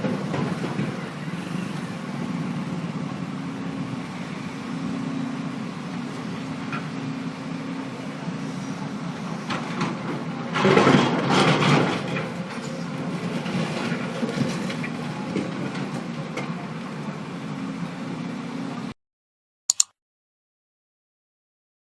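Heavy diesel construction machinery running steadily while a road is scarified, with a louder stretch of rough clattering noise about halfway through. The sound cuts off suddenly a few seconds before the end, followed by one short click.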